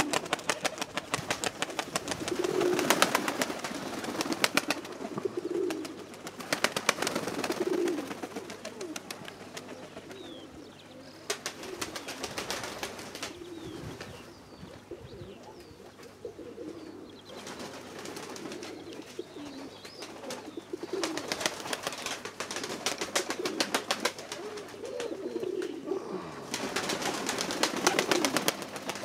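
Domestic pigeons cooing repeatedly, a call every second or two. Stretches of crackling noise lasting a few seconds come and go over the cooing.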